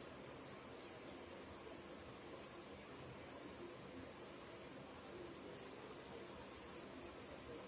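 Faint cricket chirping: short, high chirps repeating two or three times a second, slightly unevenly, over a low background hiss.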